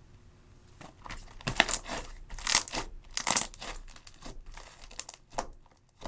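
Slime mixed with eyeshadow being squished and stretched by hand, giving a run of crackling pops and clicks. They start about a second in, are loudest in the middle, and thin out near the end.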